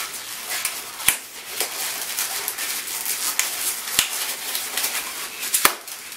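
Gray 160 latex twisting balloon squeaking and rubbing in the hands as it is folded and pinch-twisted, with three sharp squeaks: about a second in, about four seconds in, and near the end.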